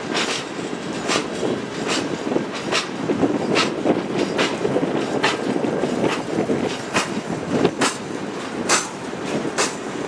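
Covered hopper cars of a freight train rolling past: a steady rumble of steel wheels on rail, with sharp wheel clicks about once a second.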